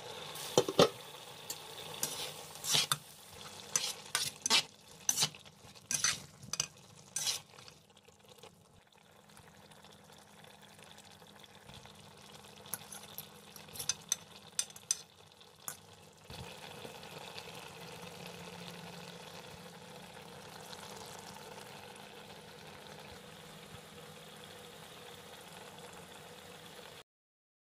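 Metal utensils clinking against a steel cooking pot as a potato-and-pea curry is stirred and tested, a run of sharp clicks over the first several seconds and a few more about halfway. Then a steady soft sizzle of the curry simmering, which cuts off shortly before the end.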